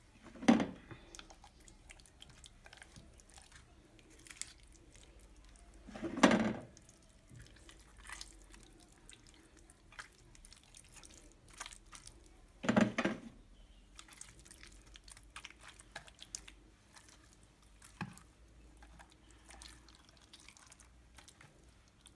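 Hands smearing a wet chermoula marinade over whole fish: soft squelching and small sticky taps. Three louder bumps come about half a second, six seconds and thirteen seconds in.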